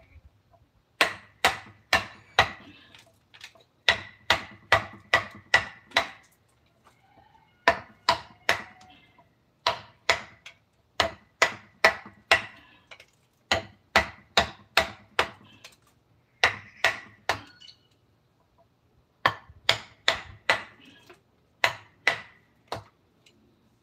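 Mallet blows driving a carving chisel into wood, struck in runs of several sharp, ringing strokes about two a second, with short pauses between the runs.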